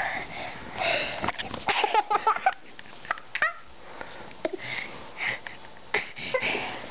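A young boy laughing and giggling in short breathy bursts while being tickled, with a few brief high-pitched squeals.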